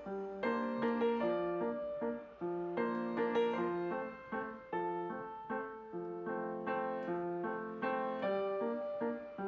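Background piano music: a flowing melody of evenly paced notes, each struck and then fading.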